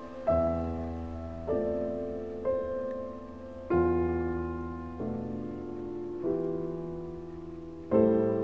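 Background music: slow solo piano, a chord struck about every second or so and left to ring and fade.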